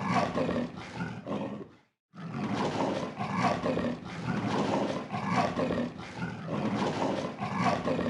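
Leopard calling: a series of repeated pulsing calls that stop for a moment about two seconds in, then go on.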